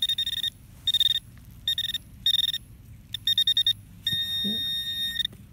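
Metal-detecting pinpointer probe beeping: short high buzzy beeps, quickening into rapid pulses about three seconds in, then one steady tone for about a second before it stops. This is the probe signalling a metal target in the loose soil.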